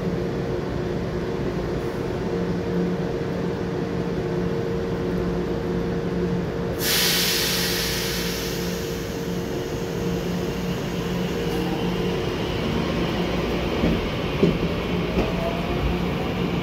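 EMU900 electric multiple unit standing at the platform with a steady electrical hum; about seven seconds in, a sudden loud hiss of air bursts out and fades away over several seconds. Near the end a rising whine and a few clicks come in as the train starts to pull away.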